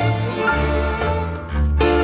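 Tango orchestra playing an instrumental passage: bandoneons and violins over a double bass line. About one and a half seconds in, the upper instruments drop out for a moment while the bass holds, then come back in.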